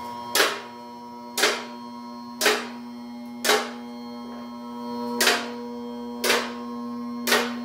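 Two-post vehicle lift raising a load: the electric hydraulic pump motor hums steadily while the arm carriages' safety locks clack about once a second as they ratchet past each lock position.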